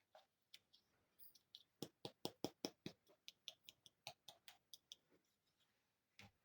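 Small plastic toy pieces clicking and tapping as miniature furniture is handled: a quick run of sharp clicks about two seconds in, then sparser clicks and a last one near the end.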